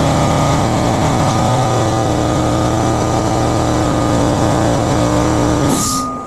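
Air compressor motor running steadily while they try to inflate the tubeless tire and seat its bead. A brief burst of hiss near the end as the running stops.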